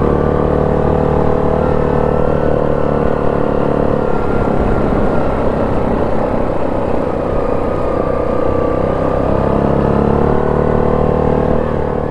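ATV engine running while being ridden, heard from on board. The engine note holds steady, turns less even for a few seconds in the middle, then settles again.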